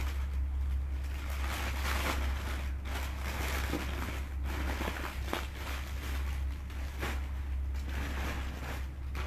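Clothes being handled, rustling irregularly with a few faint clicks, over a steady low hum.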